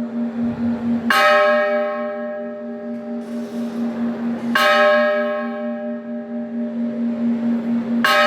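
Temple bell struck three times, about three and a half seconds apart, each stroke ringing on into the next over a low hum that wavers steadily.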